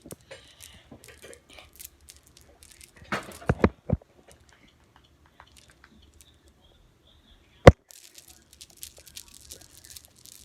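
Handling noise: scattered clicks and knocks, a few louder knocks a third of the way in and one sharp click about three-quarters through, then rapid computer-keyboard typing near the end.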